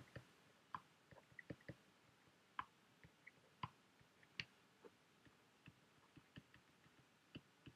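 Faint, scattered clicks and taps of a stylus on a tablet screen during handwriting, irregular and a few to the second.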